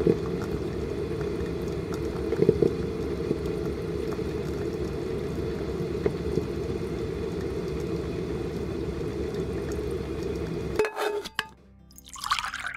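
Coffee brewing: a steady low bubbling and gurgling with faint clicks, cutting off about 11 seconds in.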